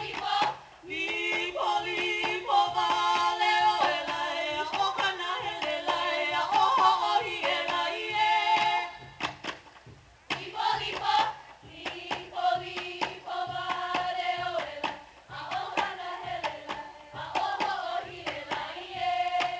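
A group chanting a Hawaiian mele to accompany a hula kahiko, in long held lines, with a short break about nine seconds in, over sharp percussive beats.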